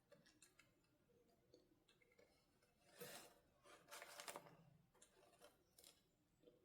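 Faint handling sounds of a doll toy being unboxed: scattered small clicks and taps, with two louder rustling stretches about three seconds and four seconds in.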